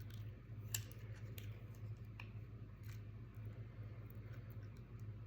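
Faint handling of packaging: a few light clicks and taps, about four spread over the first three seconds, over a steady low hum.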